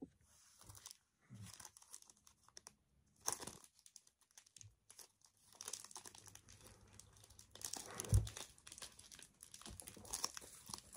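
Packaging of a false-nail set being opened by hand: short, scattered crinkling and tearing sounds with quiet gaps, growing busier about halfway through.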